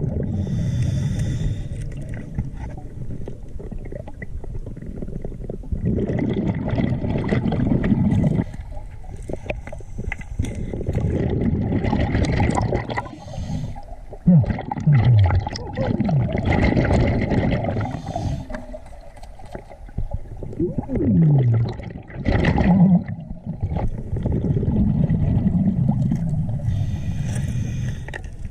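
Scuba regulator breathing heard underwater: a short hiss on each inhale and a long bubbling rumble as the exhaled air escapes, in a slow cycle, with a few short falling tones among the bubbles.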